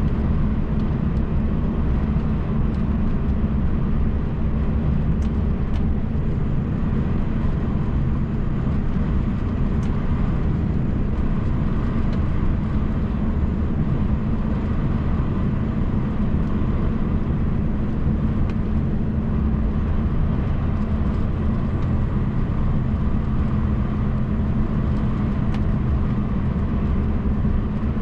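MAN TGX truck's diesel engine and road noise heard from inside the cab while driving along at a steady speed: a steady low drone that does not change.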